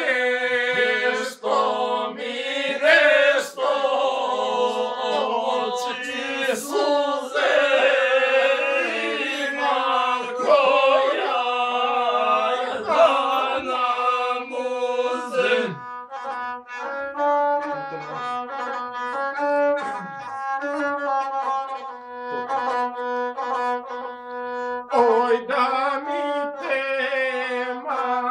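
Gusle, the one-stringed bowed folk fiddle, playing a rapid, ornamented tune over a steadily held low note.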